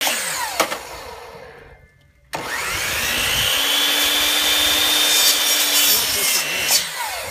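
Electric sliding compound miter saw winding down, then switched on about two seconds in, its whine rising and levelling off as the blade spins up. It runs steadily while the blade is brought down through whitefish, then is switched off near the end and winds down.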